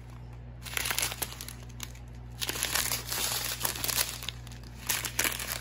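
Thin clear plastic bags of square resin diamond-painting drills crinkling as they are handled, on and off. The crinkling starts lightly and gets busier from about halfway through.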